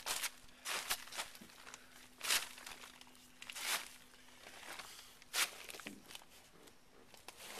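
Footsteps and rustling scuffs on grass and tarp close to the microphone: several irregular short scrapes a second or so apart as a person walks up and crouches.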